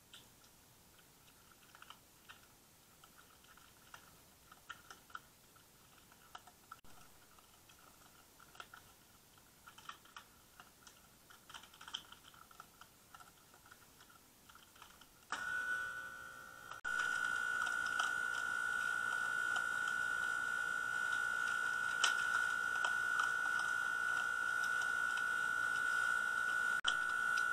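Raccoon feeding from a shallow dish: small irregular crunches and clicks of chewing. About halfway through, a steady high-pitched whine comes in and continues under the clicks.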